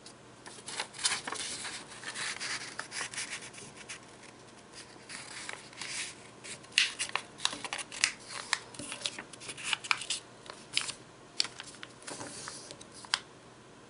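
A sheet of origami paper being folded and creased by hand: soft rustling for the first few seconds, then irregular short sharp swipes as fingers press and run along the fold.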